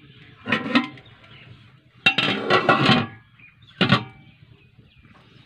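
Metal plate clattering and clinking against a metal cooking pot as it is set on as a lid: three bursts of ringing metal clanks, the middle one the longest.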